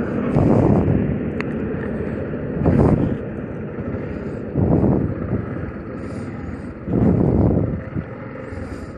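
Motorcycle riding at speed: wind buffets the handlebar-mounted microphone in four strong gusts over a steady drone of engine and road noise.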